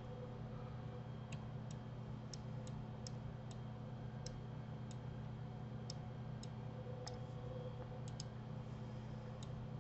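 Faint, irregular clicks of a computer mouse, about a dozen and a half, over a steady low hum.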